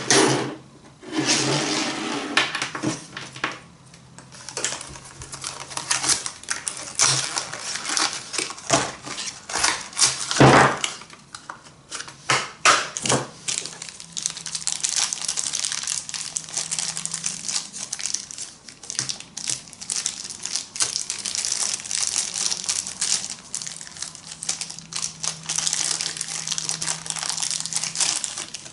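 Packaging being handled during unboxing: continuous irregular crinkling and rustling, with scattered sharp knocks, the loudest about ten seconds in.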